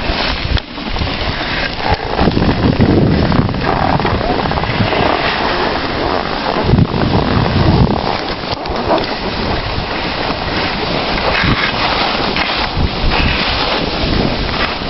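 Wind buffeting the microphone of a camera carried by a skier going downhill, a loud uneven rushing with gusty low rumble.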